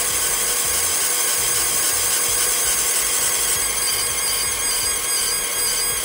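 30 W fiber laser (G-WEIKE G2 Pro) engraving a black metal case: a steady hissing buzz with a constant high whine.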